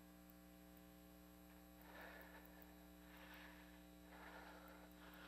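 Near silence: a steady low electrical hum with faint hiss, and a few very faint soft rustles.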